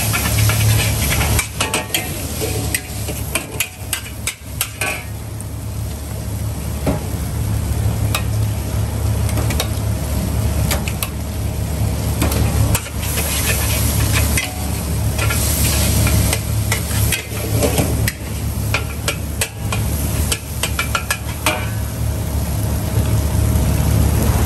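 Mee goreng mamak being stir-fried in a large wok: a metal spatula repeatedly scrapes and clanks against the wok while the noodles sizzle, over a steady low rumble.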